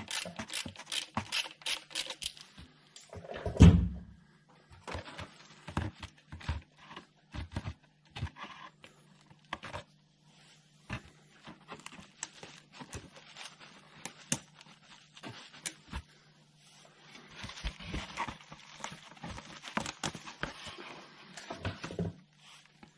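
A 1/4-inch ratchet with a 10mm socket clicking in quick strokes as it undoes the signal-wire nut on a starter motor solenoid. A single heavy thump comes about four seconds in. Scattered small clicks and rattles follow as the nut and terminal are handled, over a steady low hum.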